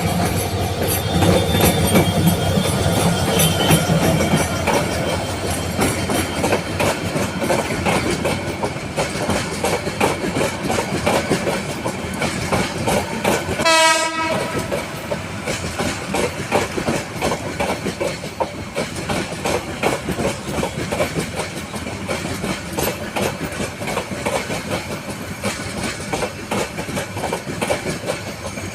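Passenger train running on the track, a steady rumble with the continuous clatter of wheels over the rails. About halfway through, a brief single horn blast sounds.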